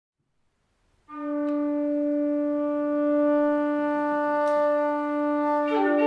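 A wind instrument sounds a single steady low drone note about a second in, and a melody of higher notes comes in above it near the end.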